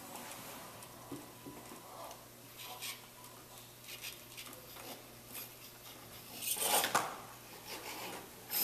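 Light clicking and metallic clatter from a small robot's servo-driven gripper arm working as it picks up a ping pong ball, with a louder clatter about seven seconds in.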